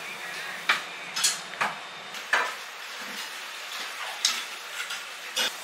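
Metal chopsticks and a metal spoon clicking and scraping against a stainless steel noodle bowl, about six separate clinks over a steady low background hiss.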